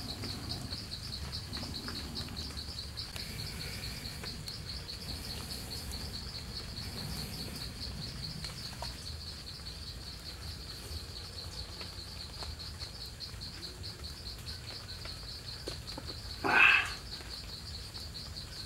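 Insects chirring steadily in a fast, high-pitched pulse, over a faint low rumble. A brief, louder call-like sound stands out near the end.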